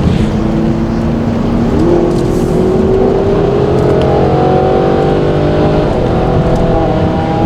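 Car engine under acceleration: the revs hold steady, jump up about two seconds in and climb, drop sharply at a gear change about six seconds in, then climb again, over steady road noise.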